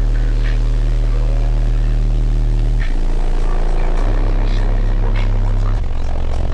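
A car audio system's subwoofers playing steady, deep bass tones that step to a new pitch about three seconds in, again a second later, and near the end.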